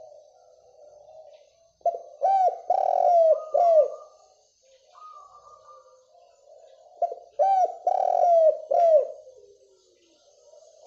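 Spotted dove (derkuku) cooing in its rhythmic song: two loud phrases of several falling coos, about five seconds apart, with softer cooing between them.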